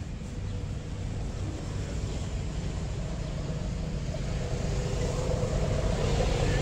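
Steady low outdoor rumble with no clear events, slowly growing louder toward the end, with a faint steady hum appearing in the second half.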